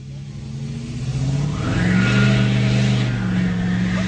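Vehicle engine running, fading in and revving up about one and a half seconds in, then holding at the higher speed.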